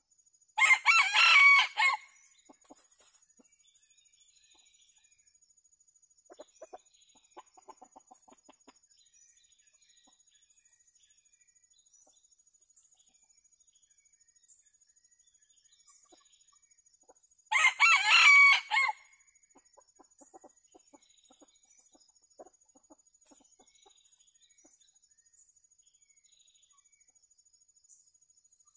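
A rooster crowing twice, each a short crow of about a second and a half, the second some seventeen seconds after the first.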